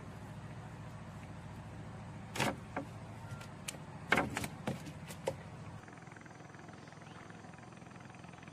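A steady low motor hum that drops away about six seconds in, with a handful of sharp knocks and clicks in the middle, the loudest about four seconds in.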